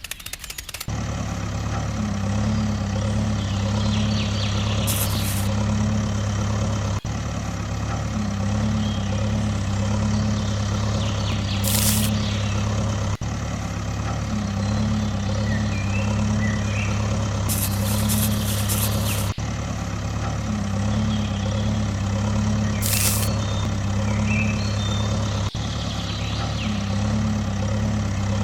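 Tractor engine running steadily at a low idle-like drone, the same pattern repeating about every six seconds. Brief sharp high sounds come every few seconds over it.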